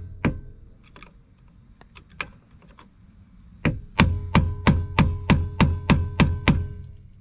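Hammer striking a flathead screwdriver set in a notch cut into a stuck bolt on a steering-column lock cylinder. Two single blows, then a quick run of about ten ringing metal blows, roughly three a second.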